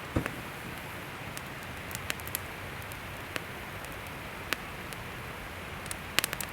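Wood campfire burning: a steady hiss with scattered sharp crackles and pops, a few clustered near the end.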